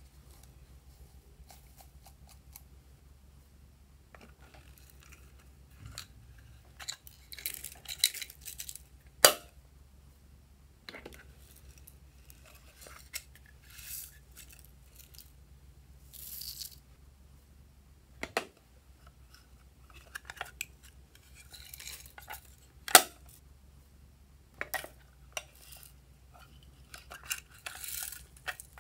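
Sequins and glitter poured from small containers into a hand and onto slime, making scattered rustling and light clicking. Two much louder sharp clicks stand out among them.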